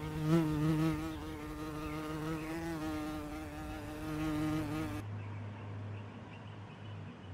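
A flying insect buzzing steadily, its pitch wavering slightly, for about five seconds before it cuts off abruptly. A faint low hum is left after it.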